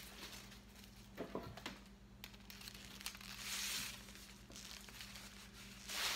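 Packaging wrap crinkling and rustling as a bag strap is pulled out and handled, in a few bursts, the loudest about three and a half seconds in and just before the end, with a few soft knocks about a second in. A faint steady low hum runs underneath.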